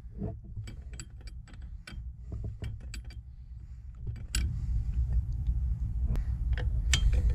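Ratcheting wrench clicking in short irregular runs as it loosens a brake line nut on a truck's brake master cylinder. A low rumble comes in about four seconds in, with a few more clicks over it.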